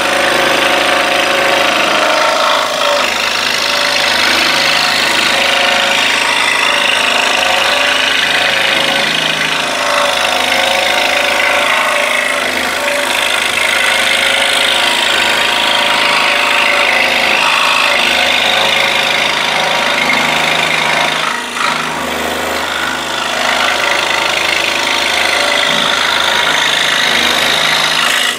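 Scroll saw running and cutting through 3/4-inch wood stock with a Pegas No. 9 modified-geometry blade: a steady mechanical sound that eases briefly about two-thirds of the way through.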